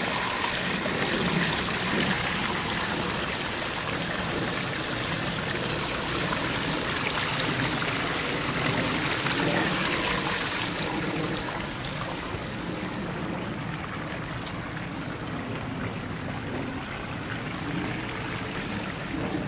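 Water pouring off the lip of a small backyard pond waterfall and splashing down over rocks, a steady rush that grows softer a little past halfway.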